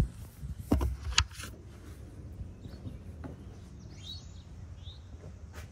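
A few sharp handling knocks and rustles in the first second and a half, then quiet outdoor background with a few short bird chirps about four seconds in.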